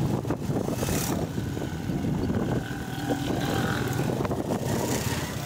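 Motorcycle engine running steadily under the rider while cruising, with wind and road noise on the microphone.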